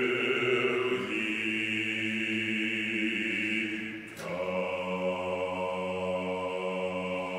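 Mixed choir singing held a cappella chords on sustained vowels, with no words. The chord shifts about a second in, and after a brief dip a fuller chord comes in about four seconds in.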